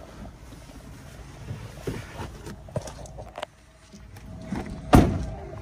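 Clicks and knocks from handling a Renault Master van's cab door, over a low steady rumble and wind on the microphone, with one loud sharp thump about five seconds in.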